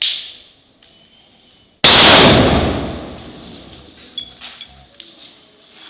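A sharp crack right at the start, then about two seconds in a Bomba Batom No. 4 firecracker goes off in the bonfire with one very loud bang that fades out over a second or so. Scattered small crackles and ticks follow.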